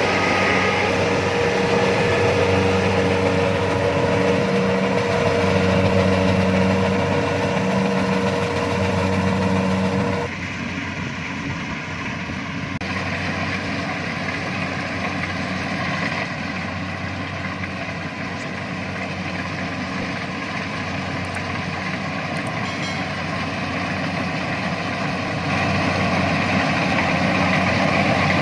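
Kubota DC-70 combine harvester's diesel engine running steadily, with a steady whine over it. About ten seconds in the whine stops and the sound drops a little, then grows louder again near the end.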